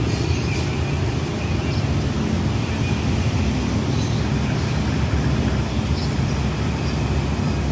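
Steady low rumble of a CC 203 diesel-electric locomotive idling while its train stands at the station, waiting to depart.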